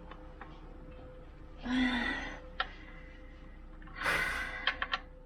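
Small folding ratchet clicking a few times on the oil drain plug, with two louder rushing bursts in between; the plug is stuck tight and the ratchet is not strong enough to break it loose.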